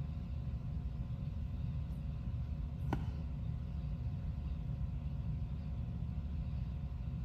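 Steady low background rumble, with one faint click about three seconds in.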